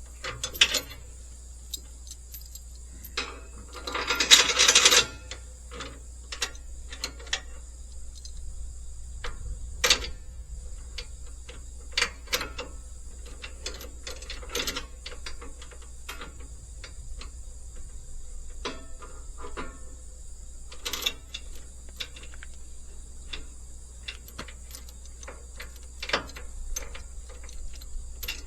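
Scattered metallic clicks and clanks, with a denser rattling clatter about four seconds in: tie-down chains and hooks being handled to secure a load on a trailer.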